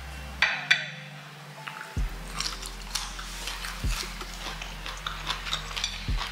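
Close-up chewing of air-fried carrot fries: a run of small crunching and mouth clicks.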